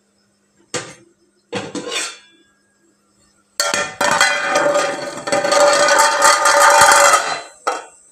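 Steel pots and utensils being handled: two short clanks in the first two seconds, then about four seconds of continuous metallic clattering and ringing, with a last clank near the end.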